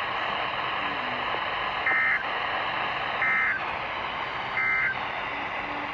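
NOAA Weather Radio EAS end-of-message signal: three short bursts of warbling two-tone SAME digital data, about 1.3 seconds apart, over a steady hiss of radio static. The bursts mark the end of the flash flood warning broadcast.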